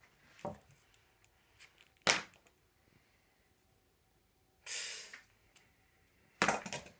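Scattered clicks and knocks of metal hand tools and a knife being picked up and handled, with a short hiss about five seconds in and a quick cluster of clicks near the end.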